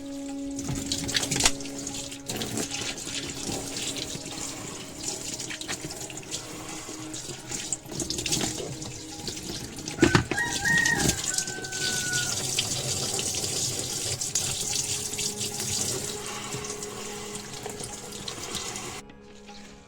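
Water running and splashing inside a washing machine, stopping suddenly near the end.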